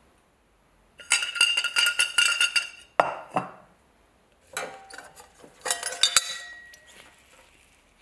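A metal belt buckle clinks and scrapes against the inside of a glass beaker, and the glass rings. There are two clusters of rapid clinks with a short swish of liquid between them, about three seconds in.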